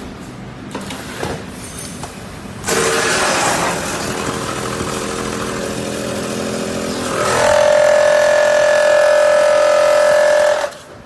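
Automatic vacuum packing machine running. A steady mechanical drone starts suddenly about three seconds in; about seven seconds in it rises in pitch into a louder steady whine, which cuts off suddenly near the end.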